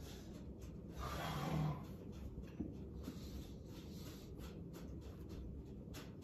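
A man breathing hard through push-ups, with a louder, voiced breath out about a second in, then fainter breaths.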